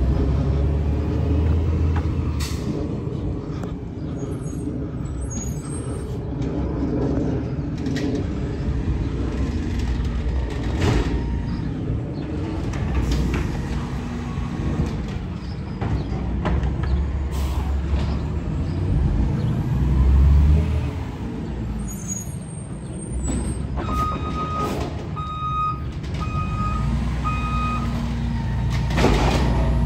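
Diesel garbage truck engine running and revving in surges as the truck packs out a load of yard waste. Near the end it gives about five reversing beeps.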